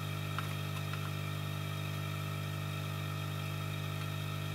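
Steady electrical hum with a low drone and fainter tones stacked above it, unchanging throughout; two faint ticks come about half a second in.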